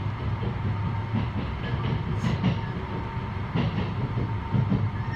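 Running noise inside the passenger car of a JR East E653-series electric train just after it pulls away from a station: a steady low rumble of wheels on rail. Two short clatters come as the wheels cross track joints, about two seconds in and again a second and a half later.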